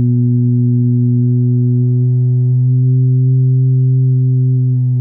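Portable speaker box with passive radiators playing a loud, steady low test tone near 100–125 Hz, with a string of overtones above it. It is a frequency test to find the passive radiators' tuning, which comes out at about 125 Hz: far too high.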